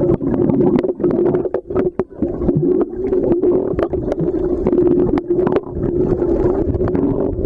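Underwater sound through a submerged camera: a steady muffled hum with many sharp clicks and pops scattered throughout.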